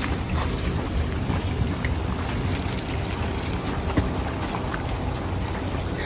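Steady rain with the low rumble of a vehicle driving on a wet road, and scattered raindrops ticking.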